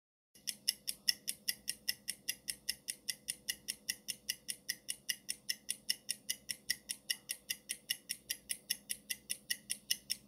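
Clock-ticking sound effect of a countdown timer: sharp, even ticks about five a second.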